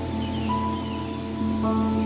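Slow meditative music: a steady low drone under long held ringing tones that change pitch every second or so.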